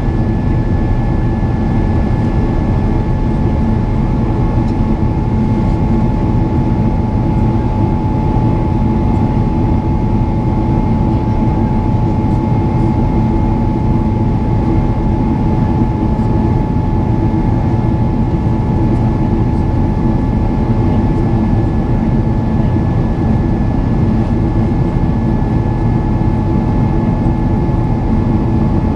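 Steady roar of a Boeing 777-300ER's GE90 turbofan engine in flight, heard from inside the cabin: a dense low rumble with a few steady whining tones above it.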